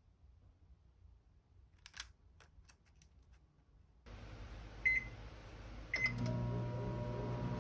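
Samsung microwave oven's touch panel beeping twice as its buttons are pressed, then the oven starting up and running with a steady hum. A few faint light taps come earlier, as a small cake is set into a paper baking cup.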